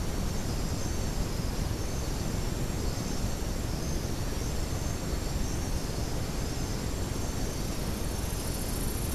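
A steady chorus of night insects, crickets or katydids, trilling high over the constant hiss and low rumble of a trail camera's microphone. A higher insect buzz joins near the end.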